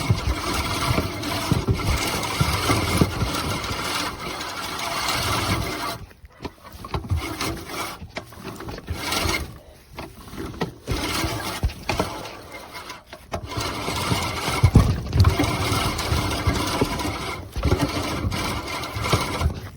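Earthwise 16-inch seven-blade push reel mower cutting grass, its reel spinning and clattering as it is pushed, in several runs broken by short pauses.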